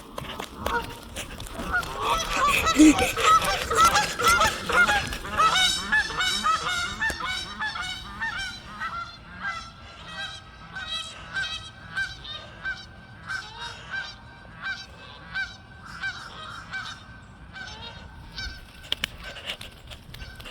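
A flock of Canada geese honking in flight. There are many overlapping honks, loudest a few seconds in, then a steadier run of single honks that gradually fades.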